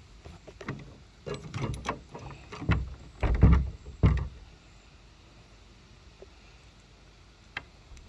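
A Master Lock combination padlock and the iron gate latch it hangs on knock and rattle repeatedly over the first four seconds, as the lock is jerked against two sticks wedged through its shackle. A single click follows near the end.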